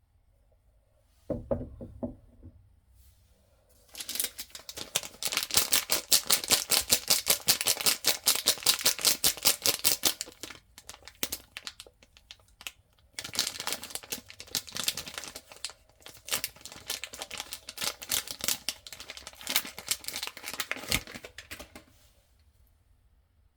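Packaged soap being unwrapped: the wrapper torn open and crinkled in two long stretches of fast crackling, after a single knock about a second in.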